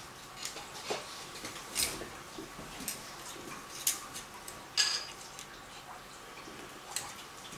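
Irregular light clicks and taps over a faint steady hiss, with one sharper tap about two-thirds of the way through.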